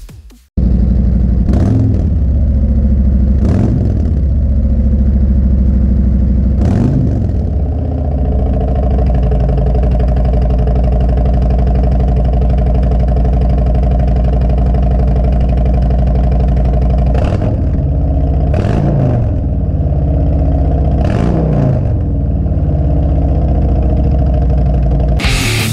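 Harley-Davidson touring V-twin with TAB Performance slip-on mufflers and Zombie baffles, idling with a loud, deep note that starts abruptly about half a second in. It is revved in about six quick throttle blips, three in the first eight seconds and three more later on, each rising and falling back to idle.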